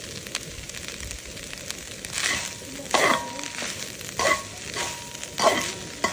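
Perforated steel ladle stirring and scraping crumbled goat blood fry and grated coconut around a wok-style pan, about five strokes from about two seconds in, over a faint steady sizzle.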